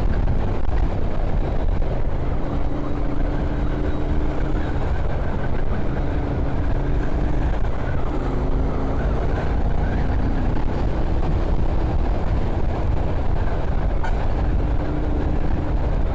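Royal Enfield Continental GT 650's 648 cc parallel-twin engine and exhaust running while the bike is ridden on the road, over a steady low rumble. Its pitch holds steady for a few seconds at a time, then shifts up or down several times.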